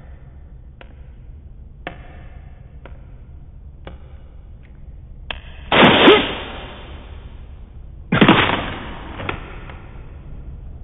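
Footsteps clicking about once a second on a hard floor, then two heavy booming impacts, each with a long rumbling decay, about two and a half seconds apart.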